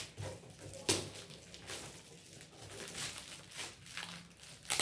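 Shiny metallic gift-wrapping paper crinkling and rustling as it is peeled off a cardboard box, with a sharp crackle about a second in and another near the end.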